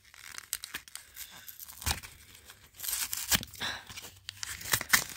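Cardboard backing of a trading-card booster pack's retail packaging being torn apart by hand: a run of irregular ripping and crackling, busier and louder in the second half.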